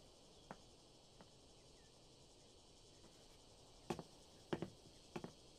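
Faint footsteps in near silence: two steps in the first second and a half, a pause of over two seconds, then about four more steps, some of them doubled, from about four seconds in.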